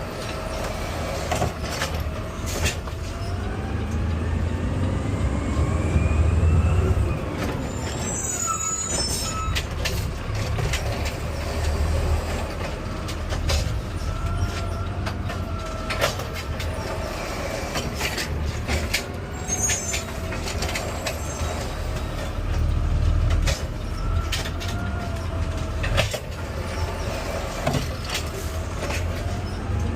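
Garbage truck's diesel engine running, its pitch rising over several seconds early on, with scattered knocks and clatter and a couple of short hisses.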